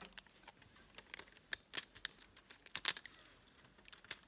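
Protective plastic film being lifted and peeled from the glue of a diamond painting canvas, giving a run of light, irregular crackles and clicks.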